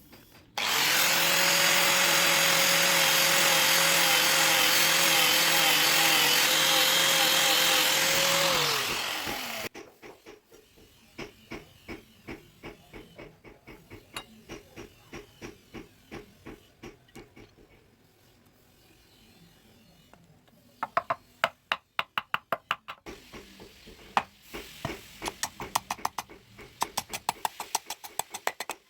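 An electric power tool, used in making a bowie knife, runs steadily for about nine seconds, then winds down with a falling pitch. After it, repeated hand-worked strokes follow: about two a second at first, then faster, sharper clicking strokes near the end.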